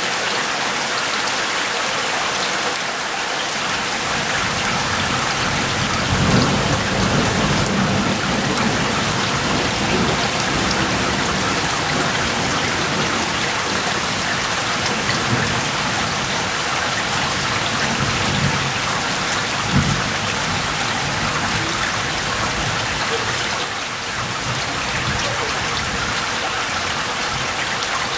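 Heavy rain mixed with hail falling steadily on grass, with low rolls of thunder, the strongest about six to ten seconds in and a shorter one near twenty seconds.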